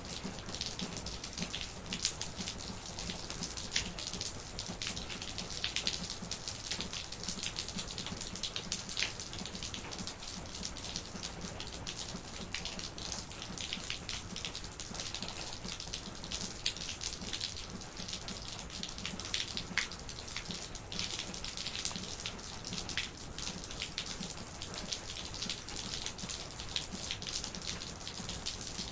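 Steady rain, with many individual drops striking close by, heard as sharp little taps over an even hiss.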